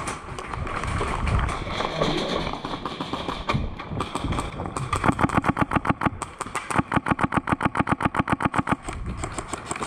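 Airsoft gun firing full-auto: two long bursts of rapid, evenly spaced shots in the second half, with a brief pause between them.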